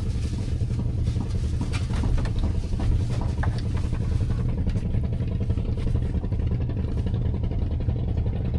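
A small engine running steadily, a low, even drone, with a few faint clicks about two to three seconds in.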